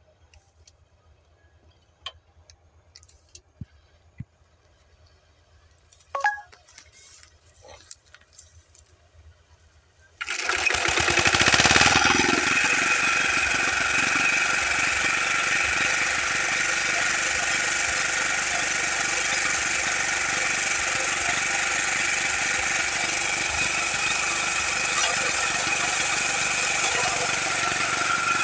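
A few faint clicks and knocks, then about ten seconds in the walk-behind wheat reaper's small engine starts abruptly and runs loudly and steadily while the machine cuts standing wheat.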